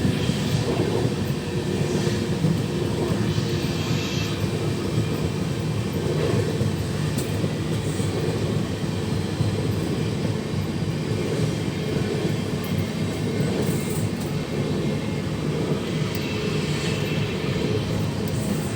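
Steady low rumble of a moving vehicle, holding even throughout.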